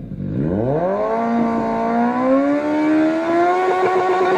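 Recorded sport motorcycle engine revving: the revs drop away right at the start, climb back quickly over the first second or so, then keep rising slowly and hold high and steady.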